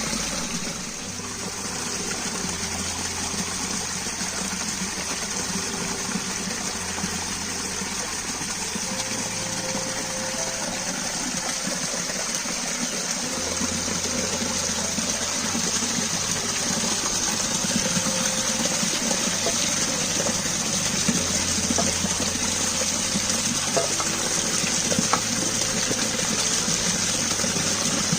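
Steady rushing, gushing water that runs on without a break.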